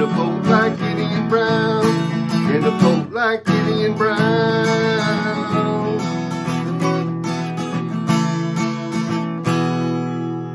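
Acoustic guitar strumming the instrumental close of a folk song. A last chord about nine and a half seconds in is left to ring and fade.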